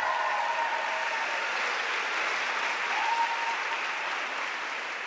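Theatre audience applauding steadily after the final bow.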